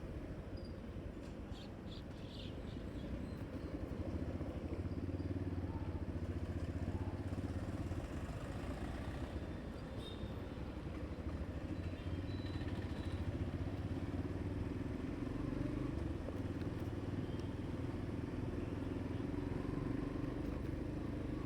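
Motorcycle engine running steadily while riding at cruising speed, its low hum holding nearly even throughout.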